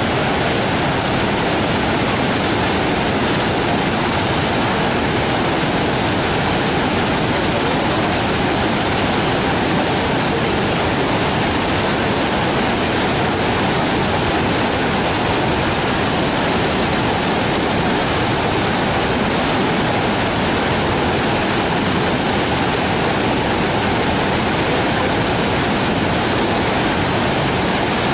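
Waterfall's water rushing in a loud, steady roar of white water, unchanging throughout.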